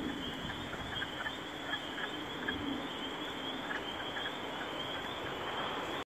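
A chorus of frogs calling at night: a steady, high, pulsing trill with scattered shorter chirps over it.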